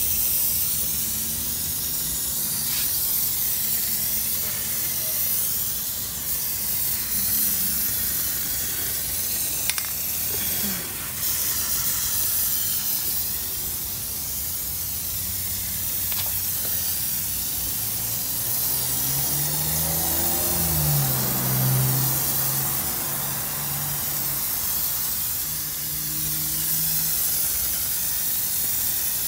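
Aerosol can of Plasti Dip rubber coating spraying in a steady hiss; the can is nearly empty.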